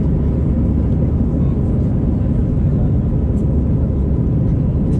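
Steady low drone of a jet airliner's engines and rushing air as heard inside the cabin during the climb after take-off, with a faint steady whine above it.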